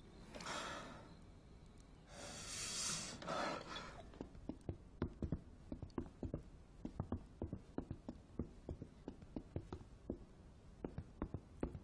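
A person breathing out heavily three times, like sighs, in the first four seconds. Then a run of light, irregular taps follows, about two or three a second.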